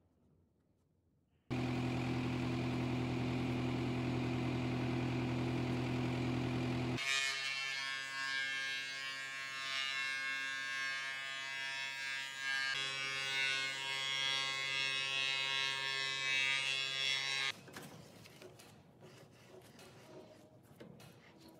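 Stationary woodworking machinery running: a steady, low-pitched machine hum for about five seconds, then a brighter machine whine with many steady tones for about ten seconds, each starting and stopping abruptly. After that, only faint shop noise with a few light clicks.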